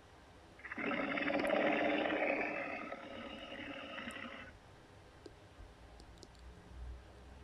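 Custom-made Godzilla roar sound effect: a harsh, rasping roar that starts about a second in, lasts roughly four seconds and tails off, followed by a faint low rumble.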